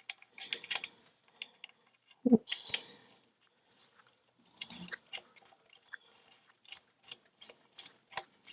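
Scattered light clicks and taps of small metal shifter-linkage parts being handled and fitted by hand, with one louder knock about two seconds in and quicker, irregular clicking through the second half.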